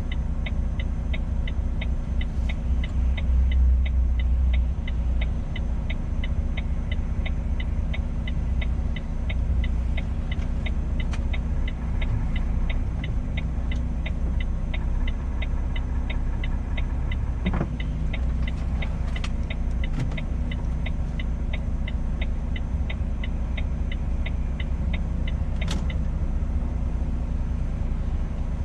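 Truck engine and road noise droning steadily inside the cab while driving. A rapid, regular ticking runs over it and stops about halfway through.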